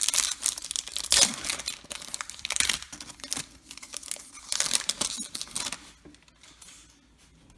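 Crinkling and rustling as baseball trading cards and their foil pack wrapper are handled: short bursts of rustle that thin out and fade near the end.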